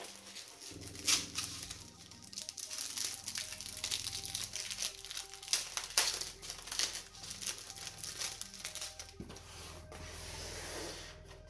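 Packaging of bead supplies crinkling and crackling as it is handled and pulled open, many sharp crackles in quick succession. Background music with a steady bass line comes in about a second in.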